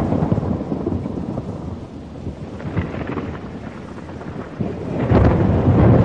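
Thunderstorm: rain falling steadily under rolling thunder. A rumble fades over the first couple of seconds, and another builds about five seconds in, loudest near the end.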